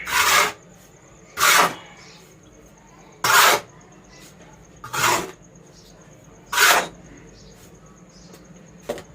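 Turmeric water splashed onto sand in five short swishes, about one every second and a half to two seconds.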